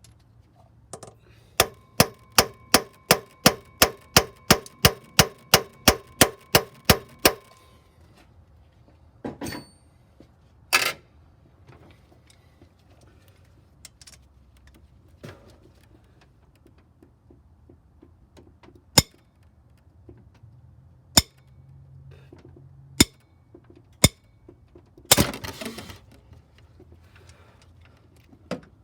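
Hammer striking a steel chisel set against a seized cylinder head bolt on a Chevy 4.2 inline-six: a fast run of about sixteen ringing metal blows, about three a second, then a few single sharp knocks spaced a second or two apart. The blows shock the bolt loose so it can be turned a click at a time without snapping.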